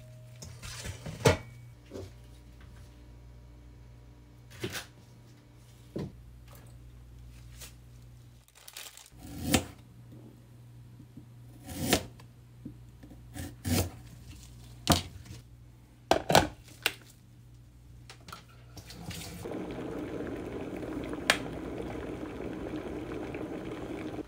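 Kitchen food-prep noises: scattered sharp knocks and clinks of utensils, a steel bowl and a knife on a plastic cutting board, over a steady low hum. In the last five seconds a steady rushing noise of water.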